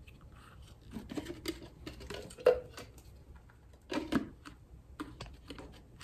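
Plastic clicks and rattles from a PrettyCare P1 Pro vacuum's dust cup as its filter lid is twisted and worked loose: a run of light clicks, one sharp click about two and a half seconds in, and another cluster near four seconds.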